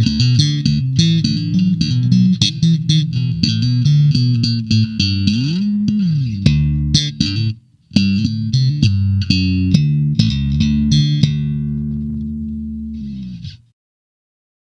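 Sadowsky Metroline MV4 four-string electric bass played solo: a run of quick plucked notes, a slide up and back down about five seconds in, and a short break near eight seconds. More notes follow, then a last low note rings for a couple of seconds before it is cut off.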